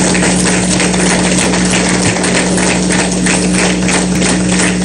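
Audience applauding in a large hall, with a steady electrical hum underneath.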